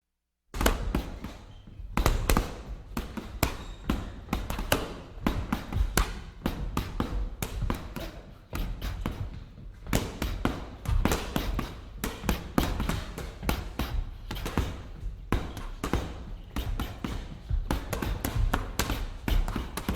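Punches landing on a punching bag in quick, irregular combinations, several heavy thuds a second.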